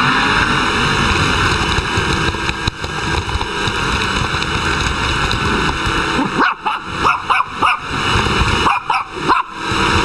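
Small white dog yipping and barking at a running vacuum cleaner, whose steady noise fills the background; the yips come in quick clusters in the second half.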